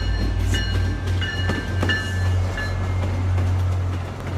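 An MBTA commuter train passing close by, its diesel locomotive engine running with a steady low drone. The wheels click over rail joints a few times about one and a half to two seconds in.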